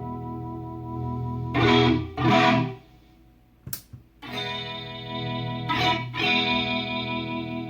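Electric guitar chords strummed and left ringing through a vintage Boss CE-1 Chorus Ensemble, the pedal's modulation working again after repair. About halfway the sound drops out briefly with two sharp clicks before the chords resume.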